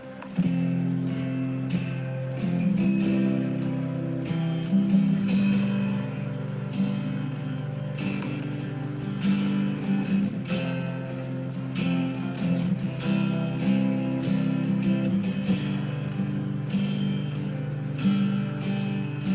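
Acoustic guitar strumming chords in a steady rhythm: the instrumental intro to a worship song, before the singing comes in.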